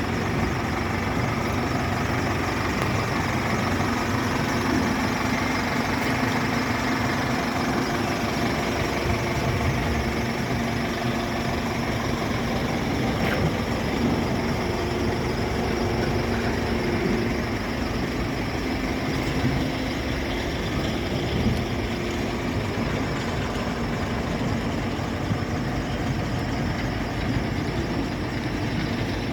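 Liebherr LH 35 M timber excavator's 140 kW diesel engine running steadily, with a whining tone that comes and goes over the engine note.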